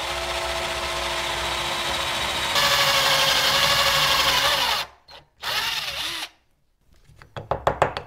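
Cordless drill with a step bit cutting a large hole through a thin steel PCI slot cover plate. The drill runs with a steady whine for about five seconds, getting louder partway through as the bit cuts. It stops briefly, then runs again for about a second, with a few light clicks near the end.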